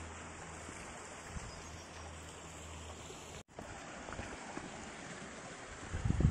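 Steady rushing of creek water flowing over rock slabs at a waterfall, with a brief sudden dropout a little past the middle and a few low thumps near the end.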